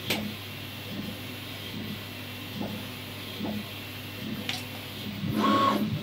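Desktop workstation PC being powered on: sharp clicks and mechanical whirring as it starts, louder near the end with a short steady tone.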